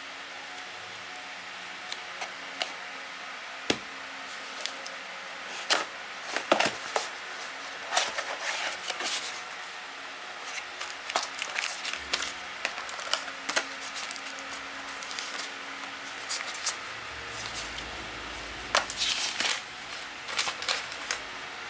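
Packaging being handled and opened by hand: irregular sharp clicks, taps and short rustles of plastic and cardboard, busiest in the middle and again near the end.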